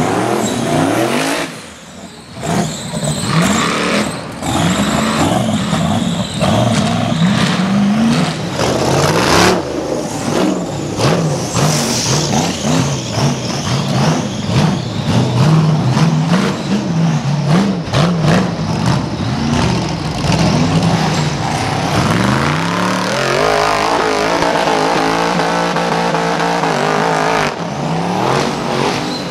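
Rock bouncer race buggy engine revving hard up and down over and over as the buggy climbs a steep rocky hill. Near the end the engine holds a steadier pitch.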